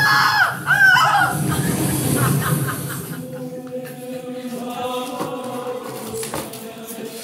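High-pitched voices crying out with sharply sliding pitch in the first second or so, then a steady held musical note.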